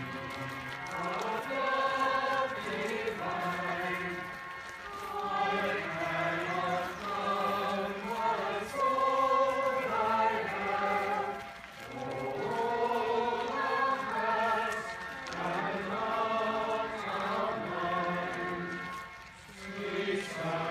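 A mixed choir singing a hymn while walking in procession, line by line with short breaths between the phrases.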